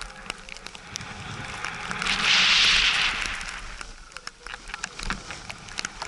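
Rushing hiss of edges carving through snow in a turn, swelling about two seconds in and fading again, with scattered sharp clicks and a low rumble of movement underneath.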